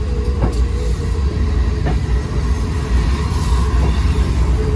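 Steady low rumble of a slowly moving railway vehicle running along the track, with a couple of short clicks from the wheels.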